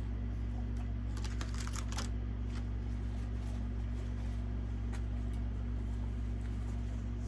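Crisp crackling of fried food being chewed close to the microphone, in a quick cluster about a second in and a few single clicks later, over a steady low hum.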